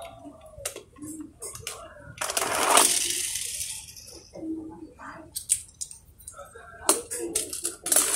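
A small toy car rolls off a board ramp and across rough concrete, its wheels making a rushing rattle for about a second, around two seconds in. Scattered clicks and taps of toy cars being handled and set on the ramp come before and after it.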